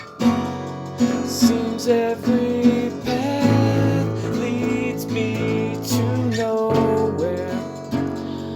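Acoustic guitar strummed in a steady rhythm, with a gliding melody line over the chords.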